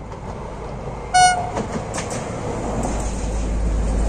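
Stadler diesel commuter train's horn gives one short, high blast about a second in. The train's low running rumble and rail noise then grow louder as it passes close by.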